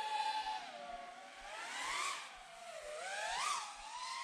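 FPV freestyle quadcopter's 2207 2000kv brushless motors and propellers whining, the pitch rising and falling with the throttle and swelling twice, about two seconds in and again near three and a half seconds.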